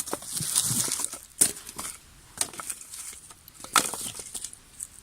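Dry leaves and twigs crunching and rustling as they are handled, with two sharp cracks, about a second and a half and about four seconds in.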